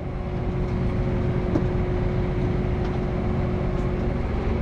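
Tractor engine running steadily under load, with a steady whine over it. It gets louder over the first half second, then holds level.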